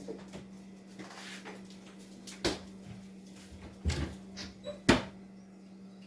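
Kitchen cupboard doors and things inside them being knocked and shifted: a few sharp knocks and clunks, the loudest about five seconds in.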